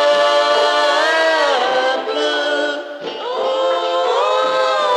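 Wordless vocal music: voices singing long held notes in harmony. The chord slides down about a second and a half in, breaks off near three seconds, and a new chord is held.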